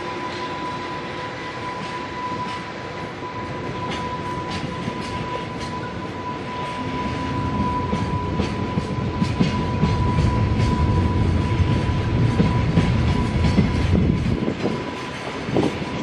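A container freight train rolling past as it pulls away, the flatcars' wheels clicking over the rail joints. A steady high-pitched whine fades out near the end, while the rolling rumble grows louder from about halfway through.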